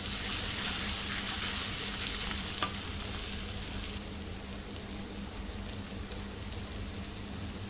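Onion-tomato masala sizzling in hot oil in an iron karahi while a wooden spatula stirs it, with scattered small pops; the spices are being fried (bhunai). The sizzle grows gradually quieter in the second half.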